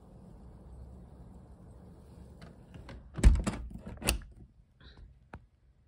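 Handling noise: a quick run of clicks and knocks, loudest about three and four seconds in, after a low steady rumble, as the phone moves against the window frame.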